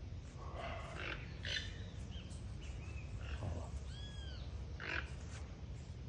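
Toucans calling: a run of short, harsh croaking calls, with a couple of high arching squawks.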